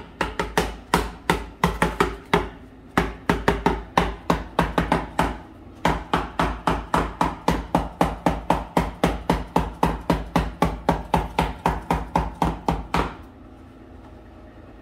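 Rapid, evenly spaced knocking, about three to four strikes a second, with two short pauses, stopping abruptly near the end.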